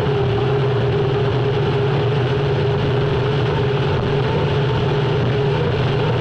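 Unlimited hydroplane's Lycoming T55 turbine engine running steadily at racing speed, heard onboard: a loud, unbroken drone with a high steady tone over a deep rumble and rushing noise.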